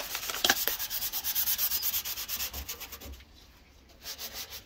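Hand sanding of rust on a car's steel wheel arch, with quick back-and-forth scratchy strokes. The strokes stop about three seconds in, then a short second bout follows near the end.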